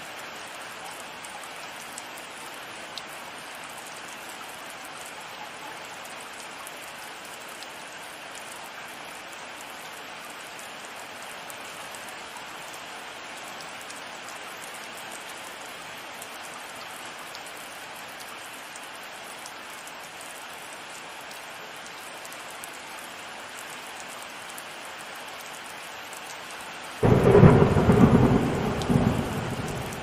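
Steady rain falling without a break for most of the stretch. About 27 seconds in, a sudden loud clap of thunder breaks in and rumbles on, swelling again a second later.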